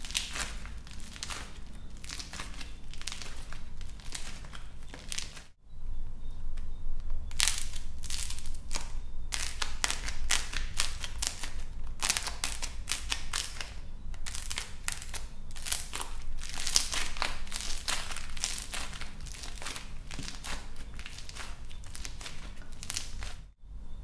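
Dried plaster clay shell cracking and crunching as hands squeeze and crush it: a dense run of quick, dry, irregular cracks. There is a brief silent break about five and a half seconds in and another just before the end.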